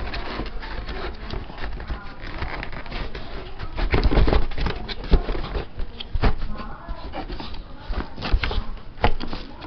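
Handling noise as a boxed sandwich maker is unpacked: rustling with scattered knocks and clicks, loudest about four seconds in.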